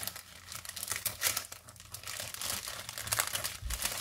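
Clear plastic bag crinkling in irregular crackles as it is handled.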